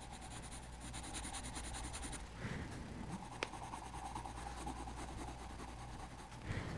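Grey colouring pencil scratching lightly on drawing-pad paper in small, steady shading strokes. A single brief click comes about three and a half seconds in.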